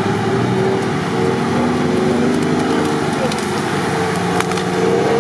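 An off-road buggy's engine is running hard under load while a tree's trunk and branches crack and splinter as it is forced over. There is a string of sharp snaps from about two seconds in, and the sharpest comes near the end.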